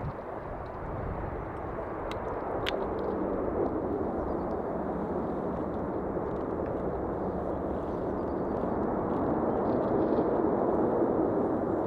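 Jet airliner on short final approach: a steady engine rumble and rushing noise with a faint hum underneath, swelling as the aircraft nears and loudest shortly before the end.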